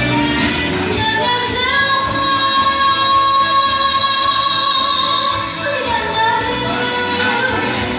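A woman singing a slow melody with long held, gliding notes over instrumental accompaniment.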